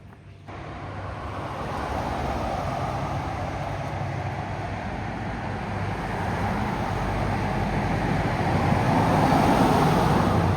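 Vehicle noise, a steady rushing that cuts in suddenly about half a second in and grows gradually louder.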